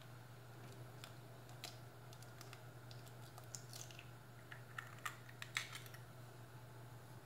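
Faint scattered clicks and taps of an egg being cracked open by hand and dropped into a pot of simmering water, over a low steady hum.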